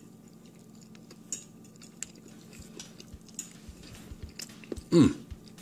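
Small clicks and clinks of clam shells and a fork against a ceramic plate during eating, with some chewing. About five seconds in comes the loudest sound, a brief vocal sound falling in pitch.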